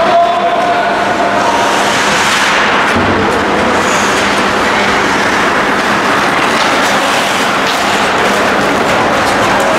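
Steady, loud, rushing noise of an ice hockey rink during play, with a low steady hum underneath.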